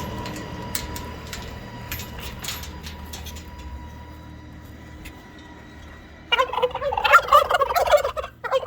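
A turkey gobbling: one loud, rapid, warbling call about two-thirds of the way in, lasting about two seconds, with a short burst just after. Before it there is only a faint low hum with a few light clicks.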